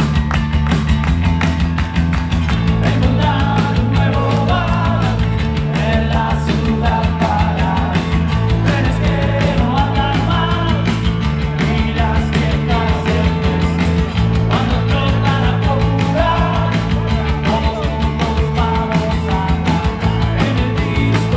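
Live rock band playing amplified: electric bass, acoustic guitar, keyboard and drums over a steady beat. A man's voice starts singing lead into a microphone about three seconds in.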